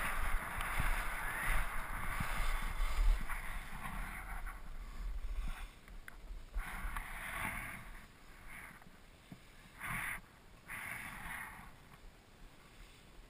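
Skis sliding and carving on packed snow: a continuous scraping hiss at first, then separate swishes with each turn that fade as the skier slows. Low wind rumble on the microphone during the first few seconds.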